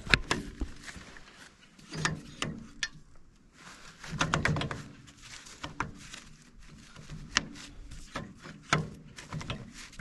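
Scattered metal clicks and clunks as the John Deere 220R loader's hydraulic quick-disconnect coupler block is handled, seated back onto its mounting plate and latched with its lever, with some rubbing and handling noise about four seconds in.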